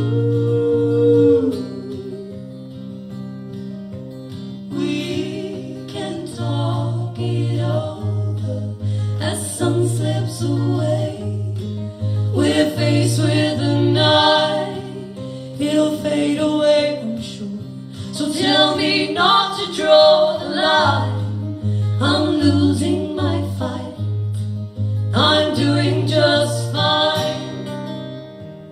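Live band music: singing voices, with no lyrics picked up by the recogniser, over a guitar, closing out a song. The music dies away near the end.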